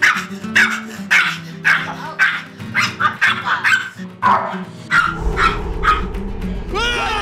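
Small Maltese dog barking sharply and repeatedly, about two barks a second, over light background music. The barks stop about five seconds in, and a low rumble and a short wavering whine follow near the end.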